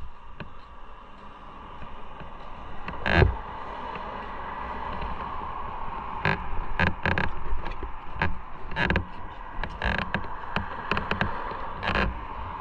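Motorcycle running: a steady hum under many sharp knocks and clicks, the loudest about three seconds in.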